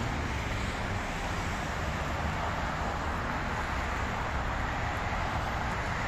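Steady road traffic noise: an even hiss of passing cars with a low rumble underneath.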